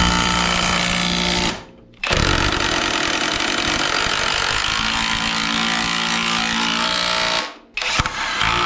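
Red Ozito cordless impact wrench hammering engine-mount bolts tight into the car's chassis. It runs for about a second and a half, stops briefly, runs again for about five seconds, then starts once more near the end.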